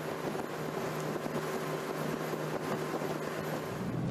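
Rigid-hull inflatable boat underway: a steady engine hum under the rush of wind and wake water.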